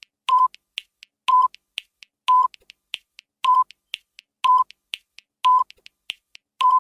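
Quiz countdown timer sound effect: seven short electronic beeps about a second apart, with quick clicking ticks between them.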